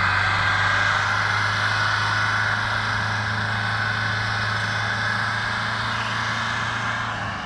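Massey Ferguson 260 Turbo tractor's diesel engine running steadily and working hard under the load of a full sugarcane trolley, with a steady high whine over the low engine note. The sound falls off a little near the end.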